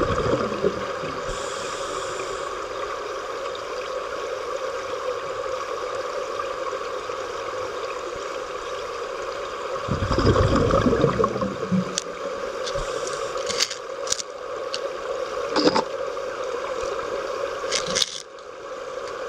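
Steady rushing water noise with a constant hum, heard in a large aquarium tank. A louder low rush comes about ten seconds in, and a few sharp clicks near the end.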